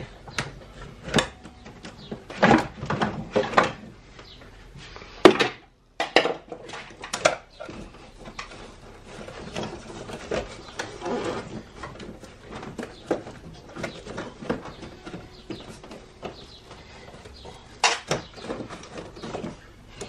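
Plastic air-intake ducting and air box parts on a BMW S85 V10 being pulled loose and handled: an irregular run of clicks and knocks with rubbing and rustling between them.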